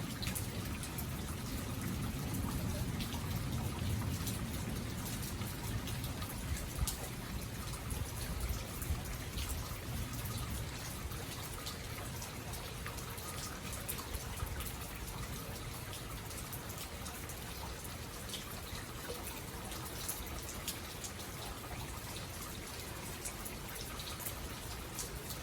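Steady rain falling, with scattered drips and taps; a low rumble under it eases after about ten seconds.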